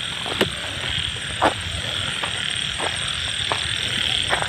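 Frogs croaking: short single croaks about once a second over a steady high-pitched chorus.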